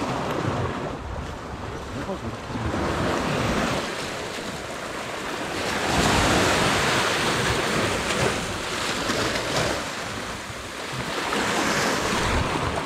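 Sea surf washing against the rocks, with wind buffeting the microphone. The wash swells louder about halfway through and again near the end.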